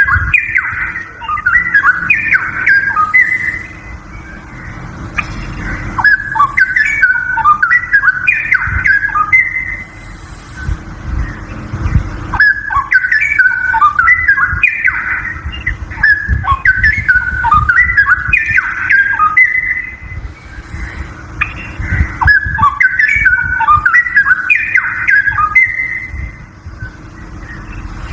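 Straw-headed bulbul (cucak rowo) singing loud whistled phrases, each three to four seconds of quick notes jumping up and down in pitch, repeated with short pauses between, over a low rumble.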